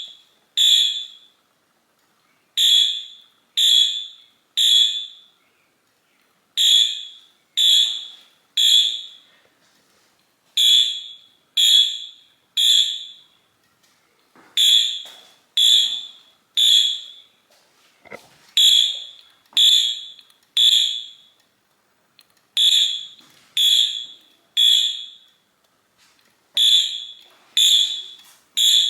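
Wheelock AS fire alarm horn chirping in the temporal code 3 evacuation pattern: three short high-pitched chirps about a second apart, repeating every four seconds. The horn is set to continuous while the panel pulses it in code 3, which gives quick chirps instead of full horn blasts.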